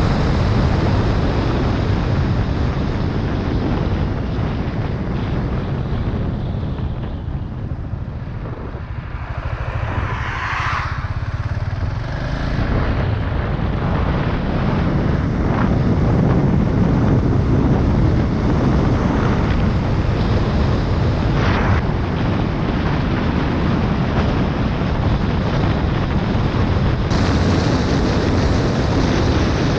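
Motorcycle ridden on an open road, its engine running under steady wind rush on the helmet microphone. The sound eases off about eight seconds in and builds again a few seconds later as the bike picks up speed.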